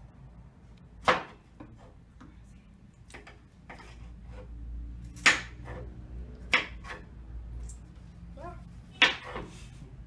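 Kitchen knife cutting a tomato on a wooden cutting board: irregular knocks of the blade striking the board, four of them sharper than the rest, about a second in, twice past the middle and near the end.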